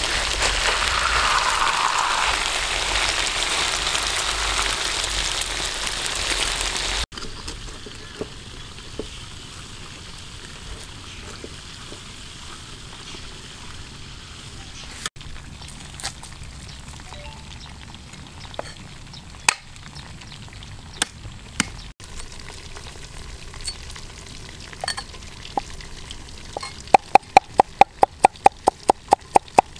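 Stingray pieces deep-frying in a wok of oil: a loud, steady sizzle that cuts off after about seven seconds, leaving a quieter background with occasional sharp clicks. Near the end a cleaver chops garlic on a wooden board, fast even chops at about four a second.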